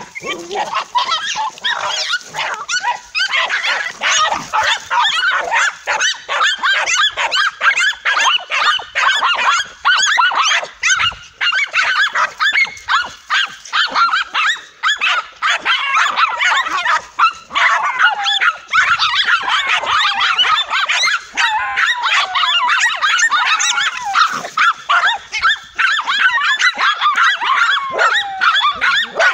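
Several dogs barking and yipping rapidly and without a break at a cornered tegu lizard, their barks overlapping, with a few drawn-out gliding yelps past the middle.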